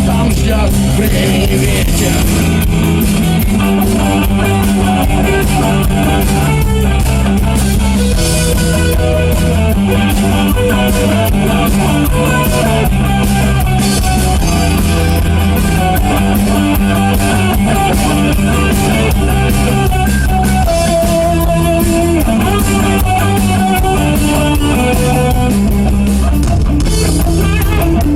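Rock band playing an instrumental passage on electric guitar, bass and drum kit.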